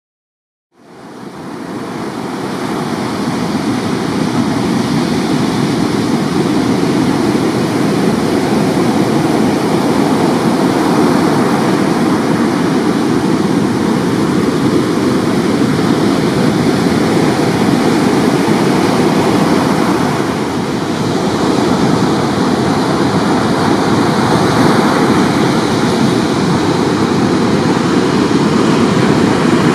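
Ocean surf breaking and washing up a sandy beach, a steady loud rush that fades in over the first second or two.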